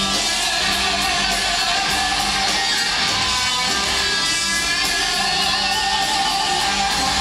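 Rock band playing live, electric guitars to the fore over drums, loud and continuous, recorded from the audience in a concert hall.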